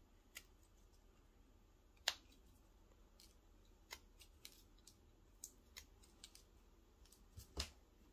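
Carving knife cutting small chips from a wooden doll blank: faint, sharp snaps and clicks, scattered and irregular, the loudest about two seconds in and another near the end.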